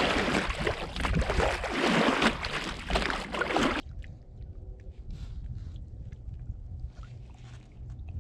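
Water rushing and splashing around an inflatable pontoon boat as it is rowed, rising and falling in surges with the oar strokes. About four seconds in it cuts off abruptly to a much quieter spell of faint clicks and rustling as a fish is handled in a landing net.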